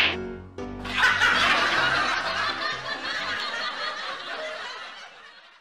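Canned laughter, a comic laugh track, coming in about a second in and fading out toward the end.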